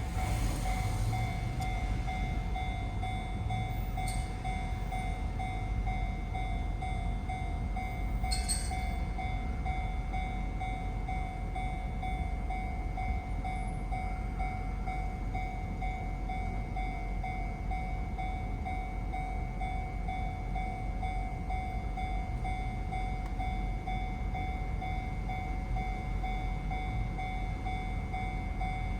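Japanese railway level-crossing alarm ringing its steady electronic 'kan-kan' tone over the low rumble of a passing electric train. There are two brief sharp noises, about four and eight seconds in.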